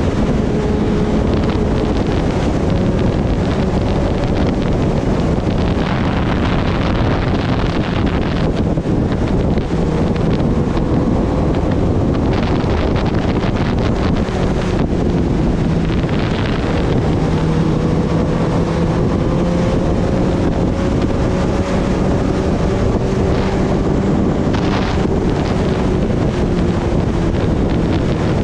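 Kawasaki Ninja ZX-10R's inline-four engine running at a steady cruising pitch that drifts slowly up and down, heard under loud wind noise on the microphone from riding.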